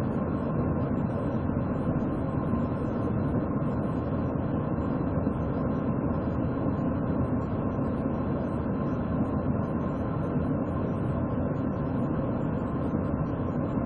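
Steady low rumbling noise, even throughout, with no distinct events.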